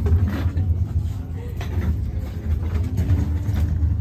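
Open-air swap meet crowd ambience: faint voices of shoppers over a steady low rumble.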